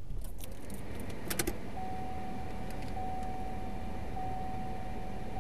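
Inside a car cabin: keys jangle and click, with two sharp clicks about a second and a half in, then a steady high electronic warning tone starts and runs on, dipping briefly about once a second, over the low hum of the car.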